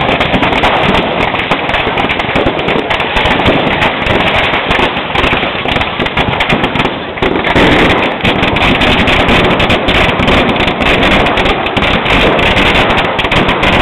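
A dense barrage of fireworks and firecrackers going off, rapid overlapping bangs and crackles with no let-up except a brief lull about seven seconds in.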